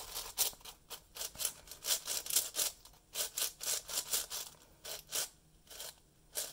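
YJ MGC 7x7 speed cube being turned by hand: quick scraping clicks of its plastic layers sliding and catching, several a second, with a few short pauses near the end.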